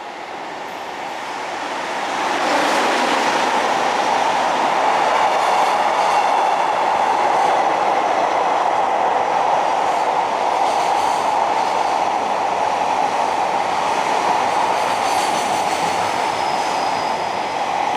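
A Shinkansen train running on the tracks at the station, a steady rail noise that builds over the first couple of seconds and then holds.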